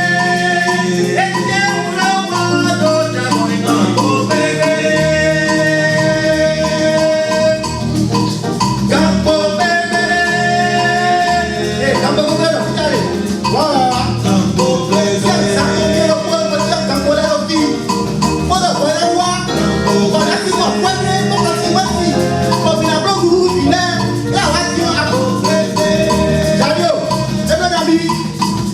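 Music: a song with a voice holding long sung notes over a steady rhythmic beat and percussion.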